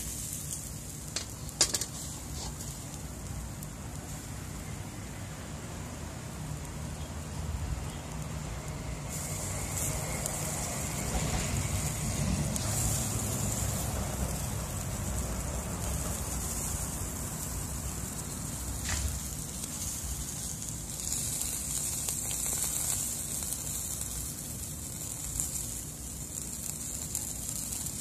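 Whole Atlantic croaker sizzling in a wire grill basket over charcoal, marinade and juices crackling on the hot coals. A few sharp metal clicks sound about a second and a half in, as the basket is turned over.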